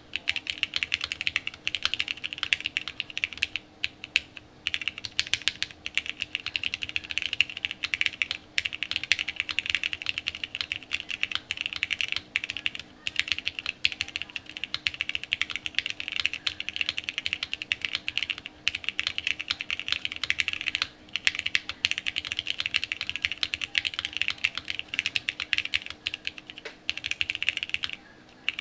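Steady fast typing on a custom mechanical keyboard, a TGR Jane V2 ME with lubed vintage Cherry MX Black linear switches on a polypropylene plate and CRP Tulip R5 keycaps, with brief pauses between bursts of keystrokes.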